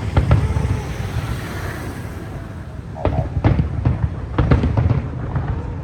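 Fireworks bursting: irregular bangs and pops, a cluster at the start and a denser run from about halfway through, over a continuous crackling rumble of distant shells.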